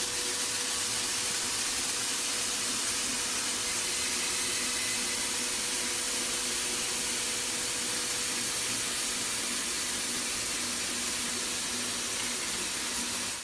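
Compressed-air paint spray guns spraying, a steady hiss, with a faint steady hum beneath it.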